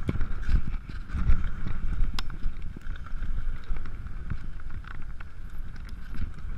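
Mountain bike descending a dry, dusty dirt trail: tyres rumbling over the ground, with the bike rattling and clicking over bumps and wind buffeting the microphone.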